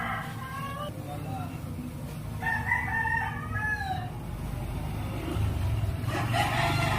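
A rooster crowing three times, each crow a second or more long, over the low rumble of a car engine that grows louder from the middle on.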